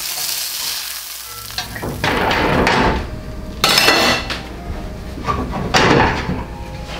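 Hot cast-iron skillet sizzling, with several louder surges of sizzle and some clatter of the pan and tongs.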